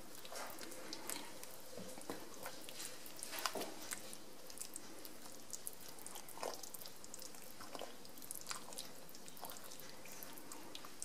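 Wooden spoon stirring thick, wet risotto in a pan: faint, irregular wet squelches and soft scrapes.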